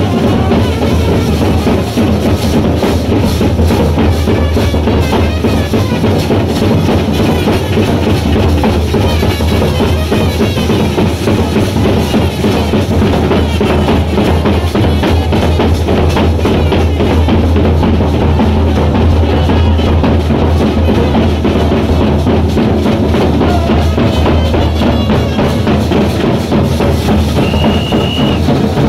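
Band-party drummers playing a large bass drum and snare drums in a steady, dense rhythm. A brief high steady note sounds near the end.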